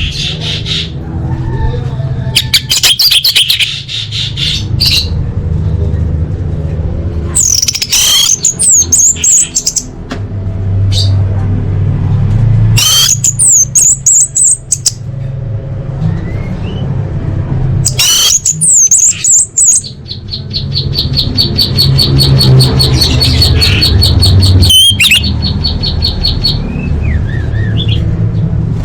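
Orange-headed thrush singing a varied song of short whistled phrases with quick sliding notes, separated by pauses. About two-thirds through comes a long, rapid, even trill. A steady low hum runs underneath.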